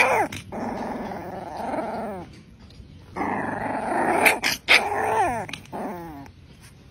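Rottweiler puppy growling in play at a hand, two rough bouts with short falling yips and a brief pause between them.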